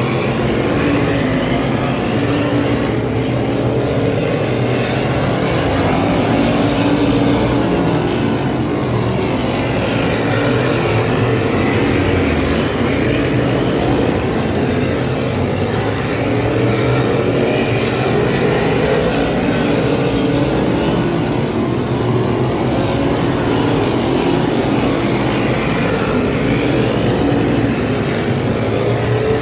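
A field of modified race cars' V8 engines running at racing speed on an oval track. The engine pitch rises and falls over and over as the cars come around the track and pass.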